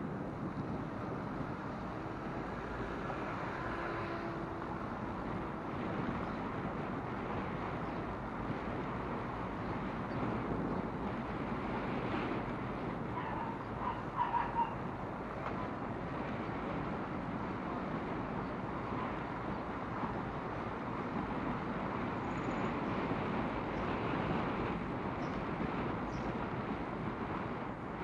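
Outdoor town street ambience: a steady wash of traffic noise with wind on the microphone. A few short, high chirps stand out about halfway through.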